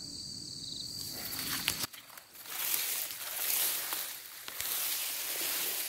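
Footsteps and rustling through dry leaves and grass, an uneven crackle starting about two seconds in. Before that, a steady high insect drone.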